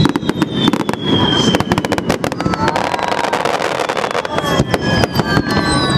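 Fireworks exploding in rapid succession with dense crackling, over high whistling tones that glide slowly down in pitch.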